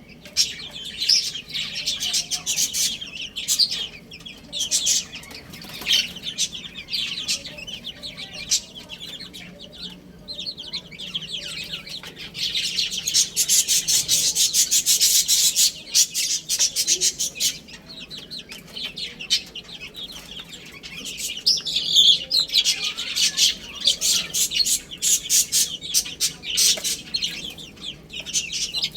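Baby chicks chirping: many short, high peeps overlapping without pause, thickest and loudest for a few seconds around the middle and again later.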